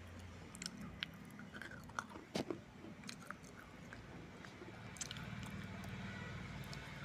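Biting and chewing pieces of baked red clay surai coated in wet red clay paste: scattered sharp crunches and cracks over moist chewing, the loudest crack about two and a half seconds in.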